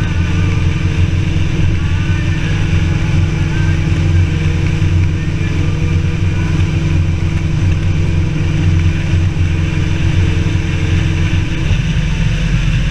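Motorcycle engine running steadily at cruising speed, with constant wind and road noise.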